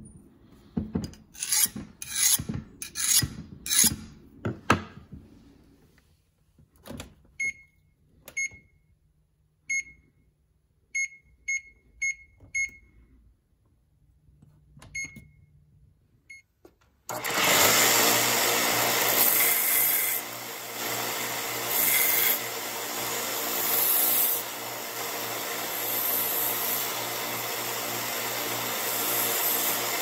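A few rough scraping strokes, then a string of short electronic beeps from an oven's keypad as the tempering temperature and timer are set. About halfway through, a belt sander starts up and runs steadily, its pitch rising and falling as the tempered knife blade is pressed against the belt for grinding.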